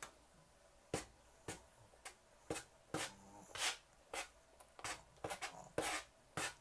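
Pin brush with a wooden handle stroking down through a Maltese's long coat, a short scratchy rub with each stroke, about two a second and coming quicker near the end.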